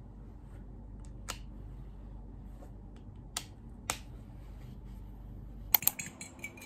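A few sharp isolated clicks over a low room hum, then near the end a fork beating egg in a ceramic plate, clinking quickly and irregularly against the plate.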